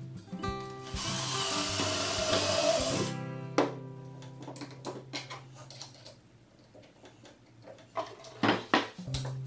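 Cordless drill running under load for about two seconds, driving into the pine bottom of a birdhouse, followed by a few wooden knocks as the drill is set down and the house handled. Background music plays throughout.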